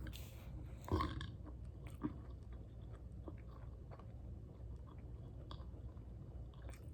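A person chewing a mouthful of food, with soft mouth clicks and a brief louder sound about a second in.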